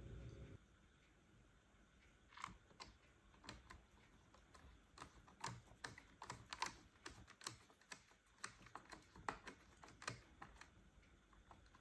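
Small screwdriver fastening a screw into the Dyson V11 battery pack's plastic housing: faint, irregular light clicks as the tool turns and re-grips. A low hum cuts off just after the start.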